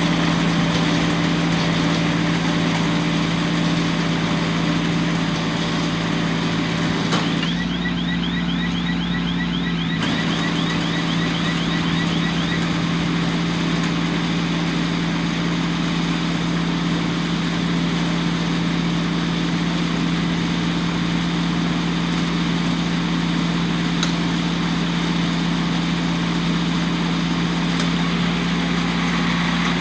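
Tractor engine running steadily at a constant speed. A few seconds in, a fast, high, repeating chirp sounds briefly over it.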